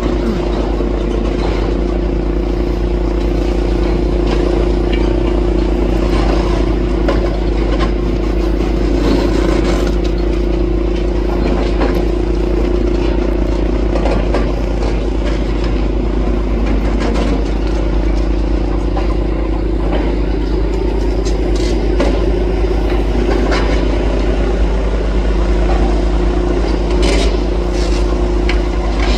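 Demolition excavator with a concrete cruncher attachment working: its diesel engine and hydraulics drone steadily, with scattered crunching, scraping and clattering of broken concrete.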